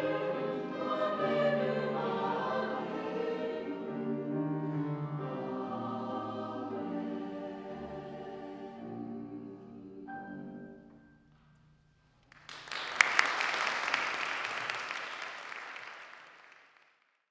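Choir singing the close of a piece, the voices thinning out about ten seconds in and ending on a held high note. After a brief pause, audience applause breaks out and dies away.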